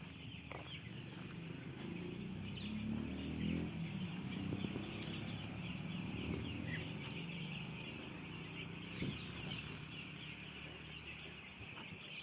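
A large flock of chickens in a poultry house: many high peeps overlapping in a continuous chorus, with lower clucking underneath that is strongest in the first half.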